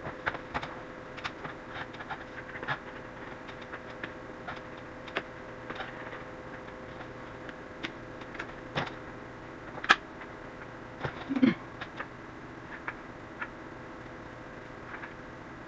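Scattered light clicks and taps of an LED strip light being handled and pressed into place along a ceiling edge, the sharpest about ten seconds in, over a steady hum.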